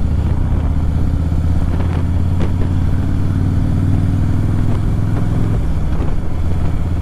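Harley-Davidson V-twin motorcycle engine running steadily under way, heard from the rider's seat; its low drone eases off about five and a half seconds in.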